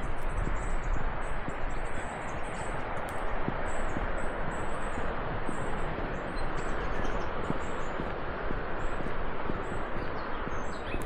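Small birds chirping in quick, repeated short calls over a steady rushing hiss.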